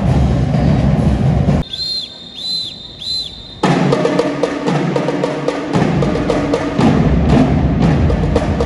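Loud drum-heavy music with sharp percussion hits, broken about two seconds in by a quieter stretch holding three short high chirps, after which the drumming resumes.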